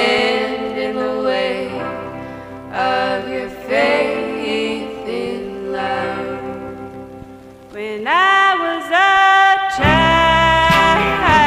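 A song playing as background music, a sung melody in long gliding notes over accompaniment; about ten seconds in the backing gets fuller and louder with a deep bass.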